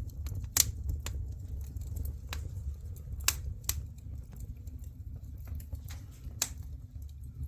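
Firewood burning in a fireplace, crackling with irregular sharp pops, a few of them louder, over a low steady rumble.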